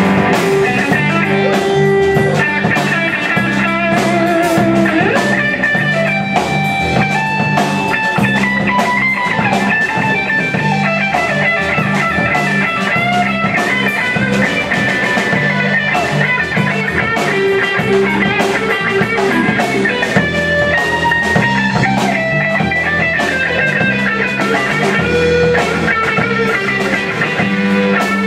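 Live rock band playing an instrumental passage with no vocals: an electric guitar lead line over rhythm guitar and drum kit.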